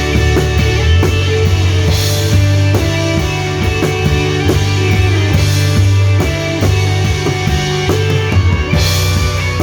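A live band playing a rock-style gospel song: a drum kit keeping a steady beat over sustained bass notes and guitar, with cymbal crashes about two, five and nine seconds in.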